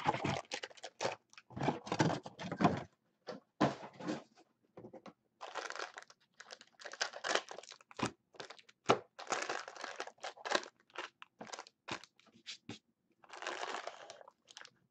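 Crinkling and tearing of wrapping and foil-wrapped card packs as a jumbo box of trading cards is opened, in irregular bursts with short gaps and a few sharp clicks.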